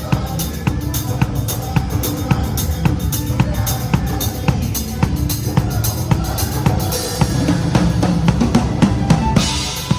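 A Pearl Reference drum kit plays a steady beat of kick drum and snare strikes along with band music. From about seven seconds in, a wash of cymbals builds and runs until just before the end.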